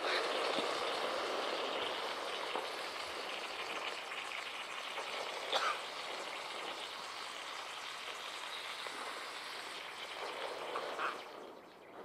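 Homemade firework rocket burning with a steady hiss and a few faint crackles, slowly fading and stopping near the end.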